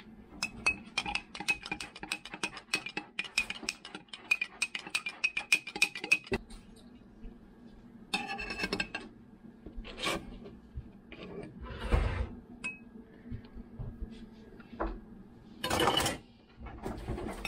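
Metal spoon clinking rapidly against a glass mason jar for about six seconds as honey is spooned in, the jar ringing with each tap. After that come a few scattered knocks and clatters of utensils.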